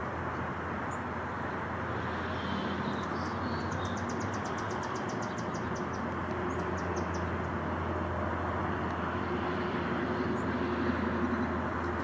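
Steady low background rumble with a hum. About three seconds in, a small bird gives a faint rapid high-pitched trill of about nine notes a second, lasting a couple of seconds, with a few more high notes later.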